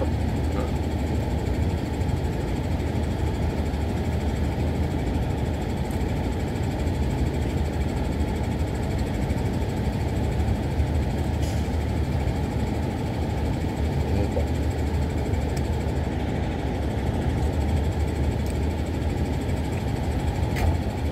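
Truck engine idling, a steady low rumble with no change in pitch or level.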